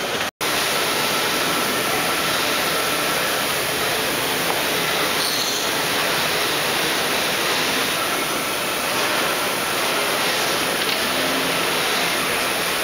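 Steady din of a large, busy hall with machinery running, a faint thin whine coming and going over it.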